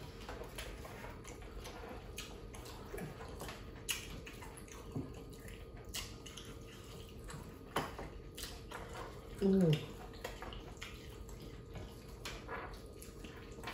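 Wet mouth sounds of eating pounded yam and pumpkin leaf soup by hand: small clicks and smacks of chewing and swallowing, with a short hummed voice sound about nine and a half seconds in.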